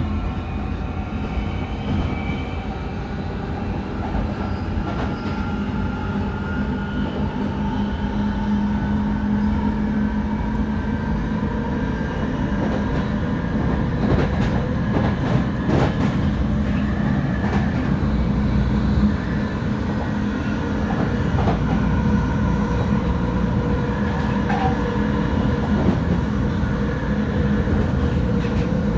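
A London Underground 1996 Tube Stock train accelerating, heard from inside the carriage. The Alstom GTO traction motors whine in several tones that climb slowly in pitch, over a heavy rumble of wheels on rail with a few knocks.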